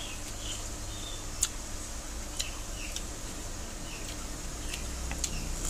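Quiet eating by hand: a few small sharp clicks and soft mouth sounds of chewing, with fingers working food on a metal plate, over a low steady hum.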